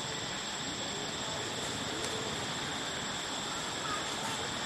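Steady outdoor background hiss with a high steady tone, and a few faint short chirping squeaks in the second half.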